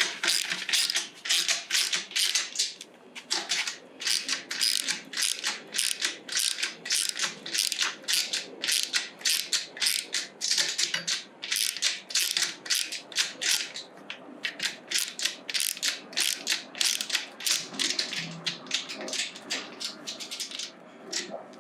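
Ratchet handle from a Stanley socket set clicking as it is worked back and forth, a steady run of sharp clicks at about three a second.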